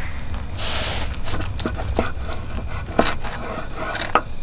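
A few small knocks and clicks of things being handled, with a short hiss about half a second in, over a steady low rumble.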